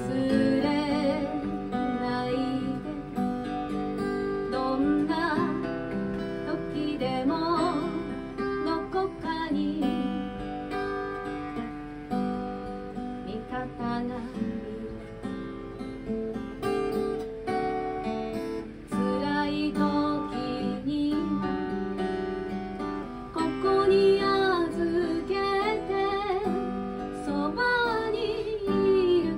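A woman singing a song while accompanying herself on a steel-string acoustic guitar.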